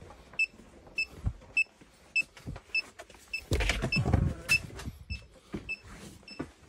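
Klein Tools ET310 circuit breaker finder receiver beeping steadily, short high beeps about twice a second. About three and a half seconds in there is a brief burst of rubbing and handling noise as the receiver is pressed against a wall.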